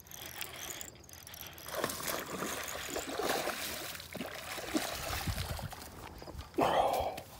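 Water splashing and sloshing at the bank's edge as a hooked bass is landed, irregular throughout, with a brief louder burst near the end.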